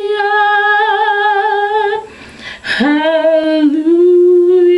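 A woman singing unaccompanied: a long held note, a quick audible breath about two seconds in, then "hallelujah" sung and held on a lower note.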